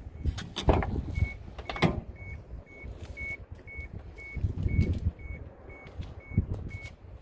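A car's warning chime beeping steadily about twice a second, with clunks and knocks of the car being handled. The sharpest knocks come about a second in and again near two seconds.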